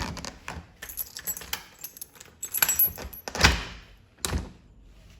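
Metallic jangling and clattering, like keys being handled, with a string of small clicks and two louder knocks about three and a half and four and a quarter seconds in.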